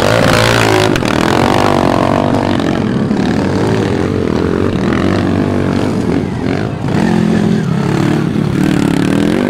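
Enduro dirt-bike engines revving, their pitch rising and falling with the throttle. A second, lower engine note joins about seven seconds in.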